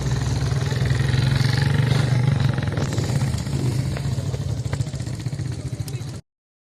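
Small motorcycle engine running with a steady low, pulsing note, easing off slightly in the second half; the sound cuts off abruptly about six seconds in.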